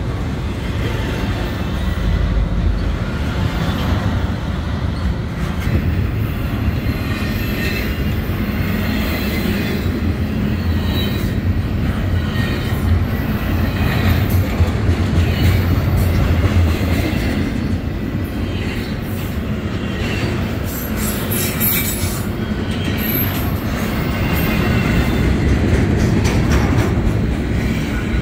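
Double-stack container train's well cars rolling past at close range: a steady heavy rumble of wheels over the rails with a rhythmic clickety-clack, and a brief high wheel squeal about three quarters of the way through.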